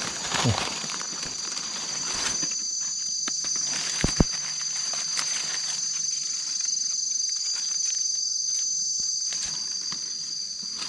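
Steady high-pitched buzz of forest insects throughout, over scattered rustling and crackling of dry leaf litter underfoot, with a couple of sharp snaps about half a second and about four seconds in.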